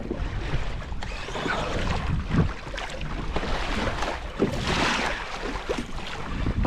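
Water rushing and splashing along the hull of a moving kayak, with wind buffeting the microphone and a few short knocks.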